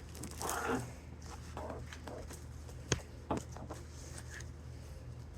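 A person eating close to the microphone: a short rustle about half a second in, then two sharp clicks about three seconds in, over a steady low hum.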